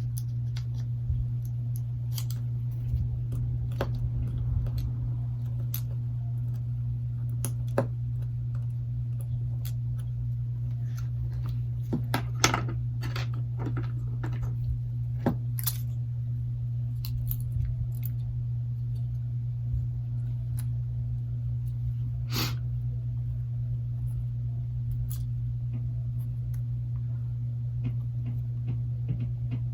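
Small clicks, taps and scrapes of repair tools on the internal parts of a Galaxy Note 8 as its charging-port section is worked loose. A steady low hum runs underneath.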